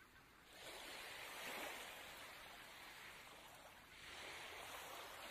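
Faint scratching of writing on a paper worksheet, in two stretches with a short break about four seconds in.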